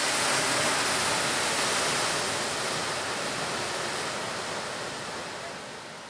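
Ocean surf breaking on a rocky shore: a steady rush of waves and spray, slowly fading out.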